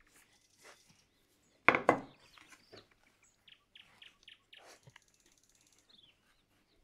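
A wooden rolling pin knocks once, loudly, on the worktop about two seconds in. Soft taps and pats follow as shortcrust dough is pressed into a metal tart tin by hand.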